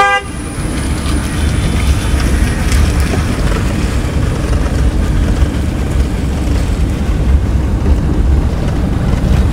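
Car cabin noise on a dirt road: a steady low rumble of engine and tyres, with uneven, bumpy road noise over it.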